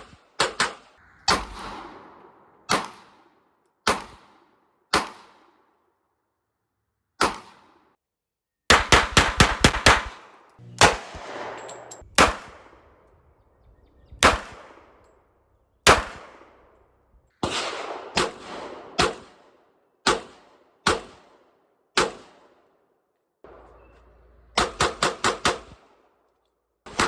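1911 pistol shots at a shooting range, each with a short ring-out. Single shots come about a second or more apart, and there are two rapid strings of six or seven shots, one about nine seconds in and one near the end.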